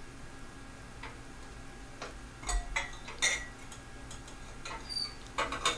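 Small clicks and knocks of a clear glass tube chimney being worked loose by hand around a 3-500Z transmitting tube in an amplifier chassis, irregular and loudest about two and a half and three and a quarter seconds in, with a brief glassy ring about five seconds in.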